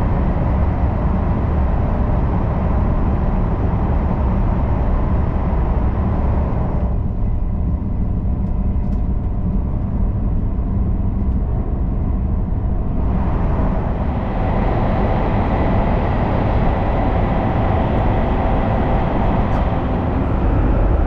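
SRT KTX-Sancheon high-speed train running at speed: a steady, loud rumble with a hiss over it. About seven seconds in the hiss drops away, leaving a duller rumble, and it comes back about six seconds later.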